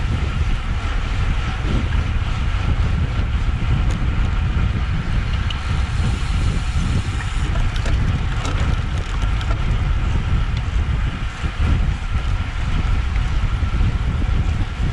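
Steady wind rumble buffeting a camera microphone on a moving road bike, with a faint steady whine running underneath.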